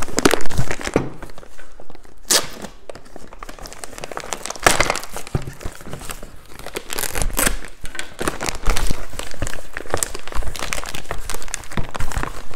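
Plastic packaging bags and paper crinkling and rustling as they are handled and pulled open, in uneven spells with a few louder crackles.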